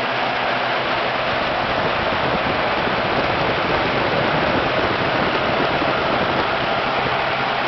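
1953 American LaFrance J-series V12 engine running steadily, heard close up at its Zenith carburetors and air cleaners, so that a steady rushing noise covers the low engine note.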